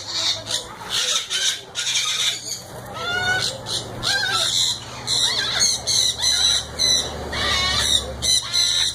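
Captive exotic birds squawking and screeching, harsh squealing calls following one another almost without a break.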